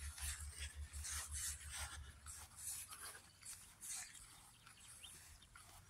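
Faint footsteps swishing through grass, about two a second, with a low pulsing wind rumble on the microphone during the first couple of seconds.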